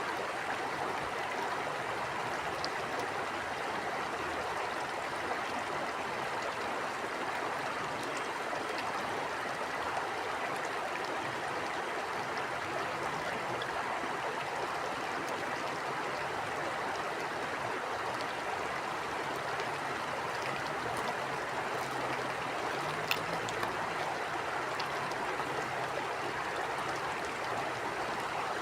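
Stream water flowing and burbling steadily over rocks, an even rushing sound with a few faint splashing ticks.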